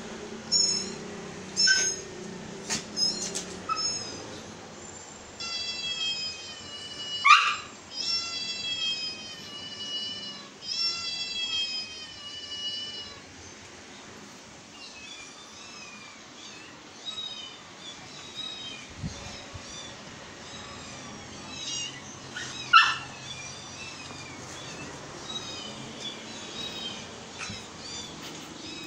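Recorded cat meows and high kitten mews played through a phone's small speaker: a long string of short calls, with two louder, sharp calls about a quarter of the way in and again near the end.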